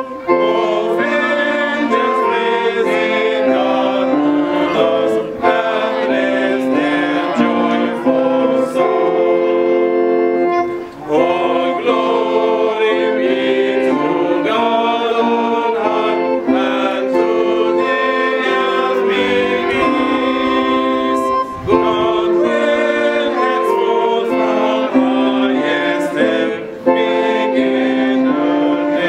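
A group of voices singing a hymn, accompanied by an electronic keyboard, in long held phrases with a few short breaths between them.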